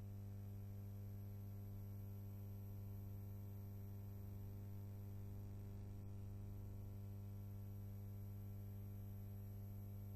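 Steady low electrical hum with many overtones over a faint hiss, unchanging throughout; no other sound.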